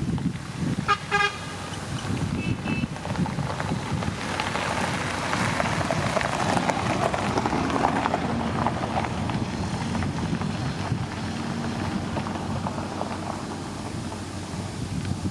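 A vehicle horn gives two short toots about a second in, over the steady running of a motor grader's diesel engine. A rushing noise swells and fades in the middle.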